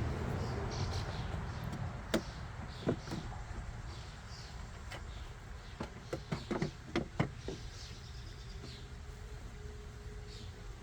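Wooden hive frames with heavy wax foundation being set into a horizontal beehive: scattered light knocks and taps of wood on wood, a few around two to three seconds in and a cluster between six and seven and a half seconds, over a low steady background.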